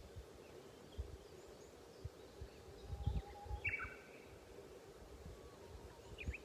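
Quiet outdoor ambience: a faint steady hum with scattered low thumps, and a bird chirping once about halfway through, with fainter chirps near the end.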